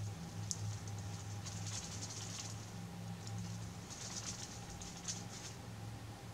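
Quiet background: a steady low hum, with three short spells of faint, high crackling in the first half and near the end.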